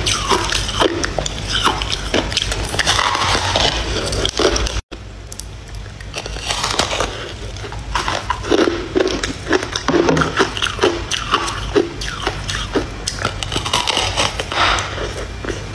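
Biting and chewing hard frozen ice, a fast run of crisp crunches and cracks, broken by a brief gap about five seconds in.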